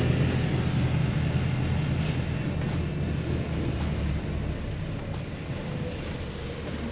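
Low rumble of a bus heard from inside the passenger cabin, gradually growing quieter.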